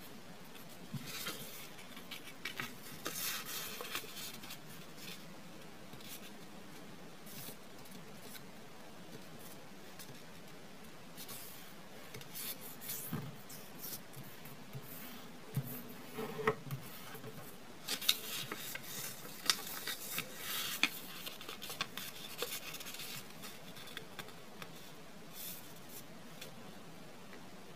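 A sheet of origami paper being handled and folded on a wooden table: scattered rustles and dry scrapes as it is slid and creased, with a few light taps.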